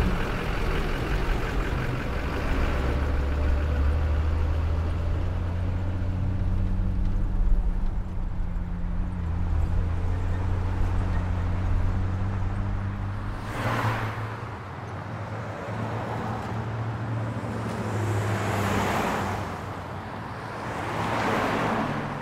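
A large engine running with a steady low hum. In the second half, three vehicles pass one after another, each a whoosh that swells and fades.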